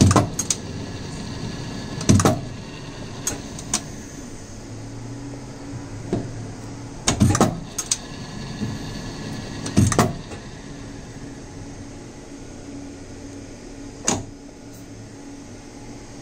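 Small metal-turning lathe running with a steady hum, broken by a handful of sharp clunks as its tooling shifts between the drilling and turning of stainless-steel screw blanks.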